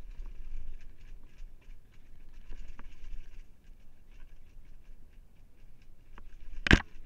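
Downhill mountain bike rattling and clattering down stone steps: many quick knocks and clicks from the tyres, chain and frame on each step over a low rumble, with one loud sharp impact near the end.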